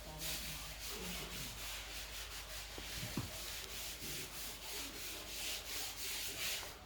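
A stiff brush scrubbing a hard surface in quick, repeated back-and-forth strokes, a harsh, hissy scratching noise that stops abruptly at the end.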